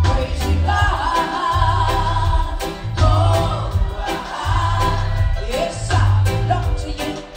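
A woman sings a gospel song, holding long wavering notes, over a live band of drums, bass guitar, electric guitar and keyboards. The bass pulses in a steady rhythm.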